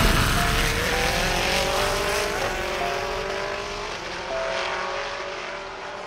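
Several GT race cars running at speed, their engine notes overlapping and slowly falling in pitch over tyre and wind noise. The sound fades steadily away.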